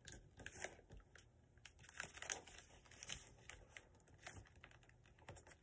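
Faint rustling and crinkling of paper being folded in half and creased by hand, in small scattered bits.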